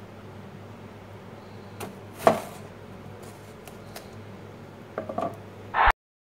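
Kitchen knife cutting through a tomato and knocking on the hard drainboard beneath it: one sharp knock about two seconds in, a few light taps, and a quick cluster of knocks near the end before the sound cuts off suddenly. A steady low hum runs underneath.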